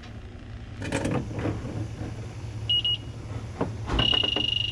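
Handheld electronic refrigerant leak detector: a brief pair of high beeps near the middle, then about four seconds in it sounds a loud, high, rapidly pulsing alarm tone as its probe picks up refrigerant leaking from the evaporator coil. Faint handling and rustling of the probe against the cabinet can also be heard.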